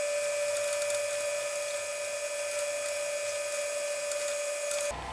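Small lathe's spindle motor running steadily as the workpiece turns slowly under a paint marker: one steady whine over a hiss, cutting off suddenly near the end.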